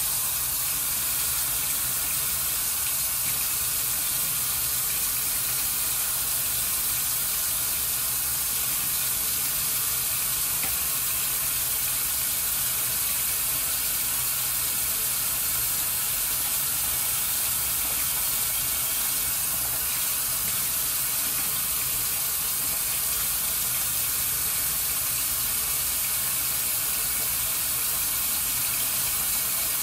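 Bathroom sink tap running in a steady stream into the basin.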